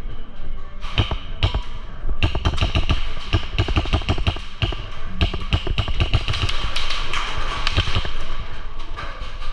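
Airsoft guns firing: a couple of single sharp shots about a second in, then rapid, irregular clicking fire from about two seconds in.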